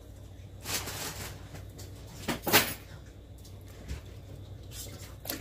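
A lump of homemade butter being squeezed and rinsed by hand in a metal bowl of water, making a few short sloshing noises, the loudest about two and a half seconds in.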